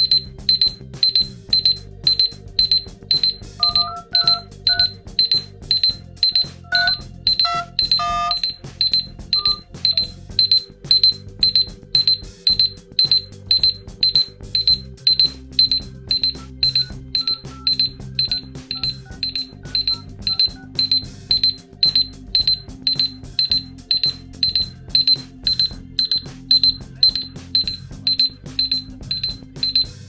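Honor 5C timer alarm beeping: a short high beep repeated about twice a second, starting suddenly as the three-minute countdown runs out.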